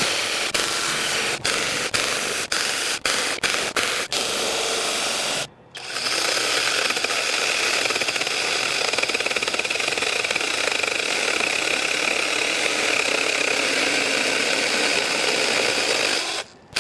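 Battery mini chainsaw (ImoumLive 6-inch, 21 V) running while cutting logs. Over the first five seconds it cuts out briefly many times as the trigger is pulsed, then it stops. About six seconds in it starts again and runs steadily for about ten seconds before stopping.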